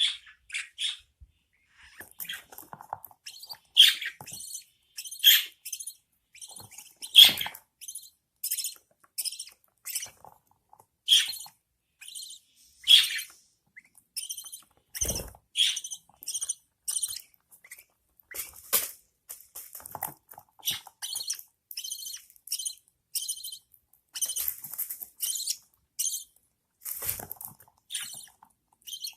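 Budgerigar chicks giving a rapid series of short, high-pitched begging cheeps, about two or three a second with a few louder calls, the sound of nestlings being fed by their mother. A single dull thump about halfway through.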